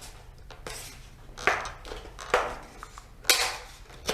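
Sharp plastic clicks and scrapes, four of them about a second apart with the loudest near the end, as a plastic locking piece by a laptop's port is pushed and worked loose from the base.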